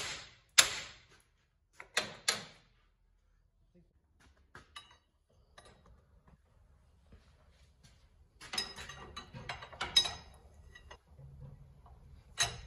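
Hammer smacking the steel steering knuckle to break the upper ball joint's taper loose: four sharp metal strikes in the first two and a half seconds. After a quiet stretch, from about eight seconds in comes a few seconds of clinking and clicking of a hand tool on the ball joint nut, and one more sharp knock near the end.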